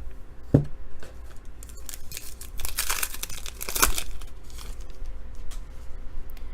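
Wrapper of a sports card pack being torn open and crinkled, with a knock about half a second in and the loudest tearing and rustling between about two and four seconds in.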